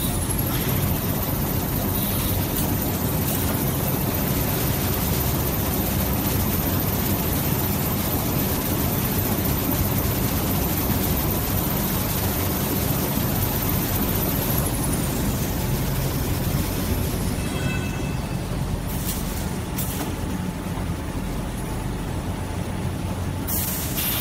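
Toilet-tissue production line machinery running: a steady mechanical din of rollers and conveyors, with a thin high whine that climbs at the start, holds, and winds down a little past the middle. A few sharp knocks come near the end.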